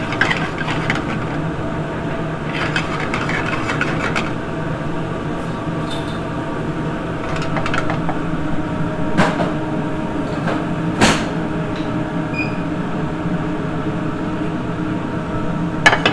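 Steady mechanical hum of commercial kitchen equipment, with scrapes and light clinks of a skillet and utensil as pan sauce is poured over plated salmon. Two sharp knocks come near the middle.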